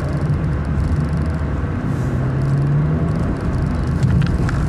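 Honda Fit Hybrid with a Kakimoto aftermarket muffler driving, heard from inside the cabin: a steady low engine and exhaust drone over road rumble.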